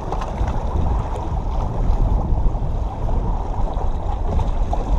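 Steady wind rumble on the microphone, with waves washing against the jetty rocks.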